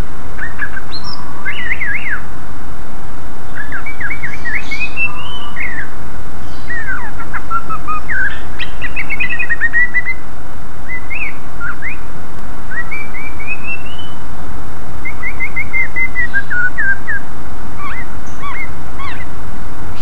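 Cucak ijo (greater green leafbird) singing continuously in quick phrases of chirps, upward-sweeping whistles and short trills, over a steady background noise.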